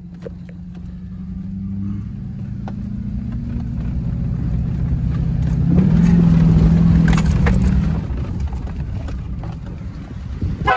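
Truck engine and road noise heard from inside the cab while driving. It builds to its loudest about six seconds in, then eases off as the truck slows. A horn sounds right at the very end.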